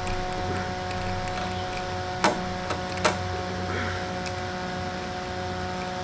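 A screen spline roller pressing screen mesh and spline into an aluminium window-screen frame's groove, with small scraping ticks and two sharp clicks about two and three seconds in. A steady hum from a small electric desk fan runs underneath.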